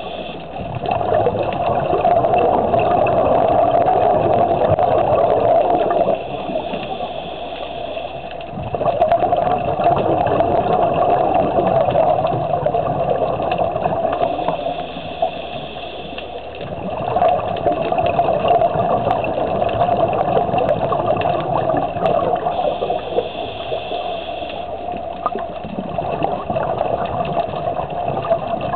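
Scuba diver breathing through a regulator underwater: long gurgling rushes of exhaled bubbles, each lasting about five seconds and coming round about every eight and a half seconds, with a thin high hiss of the regulator in the quieter gaps between them as the diver inhales.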